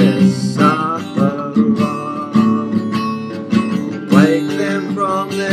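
Acoustic guitar strummed in a steady rhythm, with a man singing over it, holding one long note midway.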